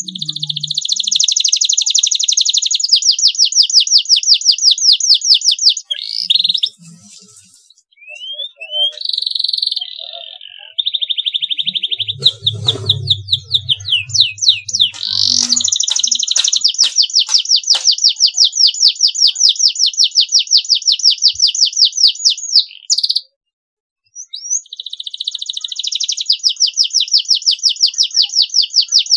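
Canary singing long, fast rolling trills of rapidly repeated high notes, broken by short pauses and a few rising whistled notes. A brief low hum about twelve seconds in.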